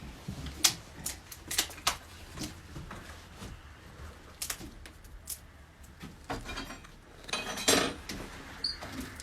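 Metal tools and pieces of steel clinking and knocking as they are handled: scattered sharp clicks, with a longer scraping rustle about three-quarters of the way through.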